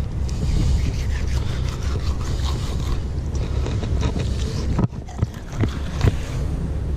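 Fillet knife slicing and scraping between skin and flesh as tripletail fillets are skinned, in short scratchy strokes, over a steady low rumble.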